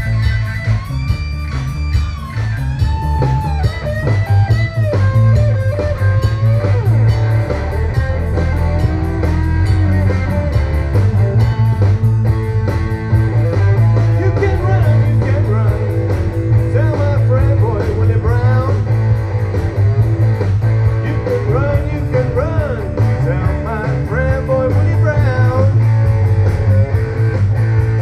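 Rock band playing live through a PA: electric guitar lines over bass and drums, with a man singing into a hand-held microphone.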